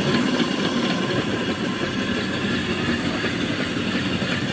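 The two small twin steam engines of a homemade steam donkey logging yarder running slowly under steam, with their cylinder drain cocks closed: a steady, rapid mechanical clatter and chuff.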